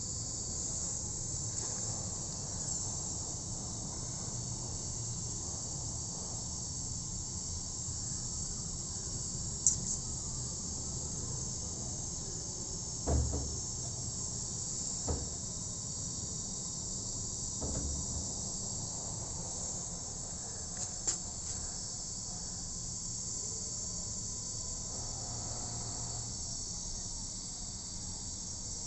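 Steady, high-pitched chirring of insects, with a low rumble underneath and a few brief knocks, the strongest about halfway through.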